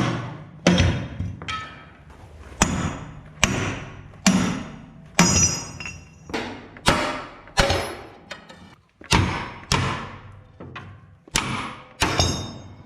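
Hammer blows on steel, struck at a steady pace of a little more than one a second, each landing hard and ringing briefly, while working loose the old track-roller bolts on a mini excavator's track frame.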